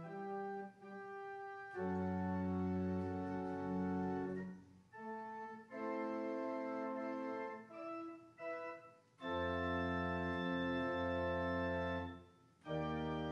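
Church organ playing slow sustained chords in phrases, with deep pedal bass notes coming in under several of them and brief breaks between phrases.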